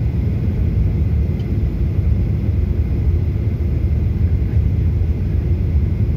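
Steady low rumble inside an airliner cabin in flight: engine and airflow noise heard at a window seat during the descent.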